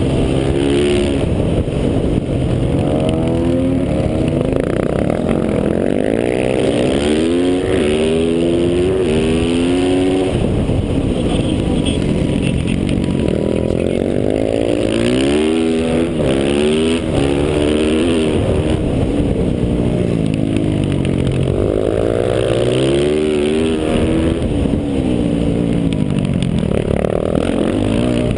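Stock Yamaha YZ450F's single-cylinder four-stroke engine heard onboard at race pace, its pitch climbing through each gear and dropping back at shifts and braking, over and over.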